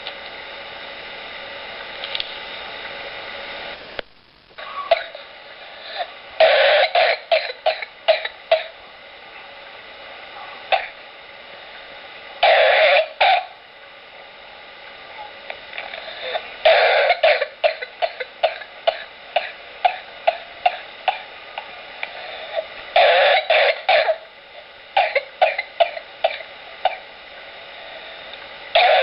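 Paroxysmal coughing of whooping cough (pertussis): several fits, each a rapid run of short coughs, with a longer held sound between some runs, over a steady hiss.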